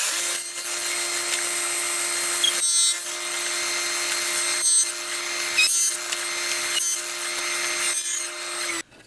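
Table saw with a 7/8-inch dado stack running at speed, cutting box-joint notches in pine boards. It holds a steady hum, with a few brief sharper moments, and cuts off near the end.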